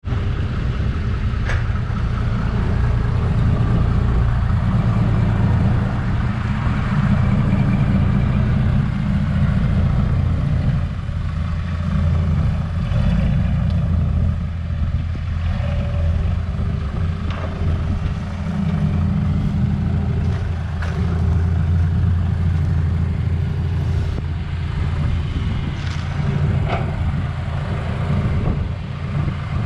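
Heavy diesel engines of a hydraulic excavator and a six-wheel dump truck running during soil loading, the rumble swelling and easing every few seconds as the excavator works. A few short sharp knocks sound over it.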